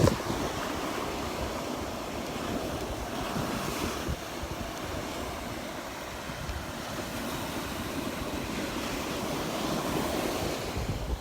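Surf washing onto the beach, with wind buffeting the microphone in an uneven low rumble.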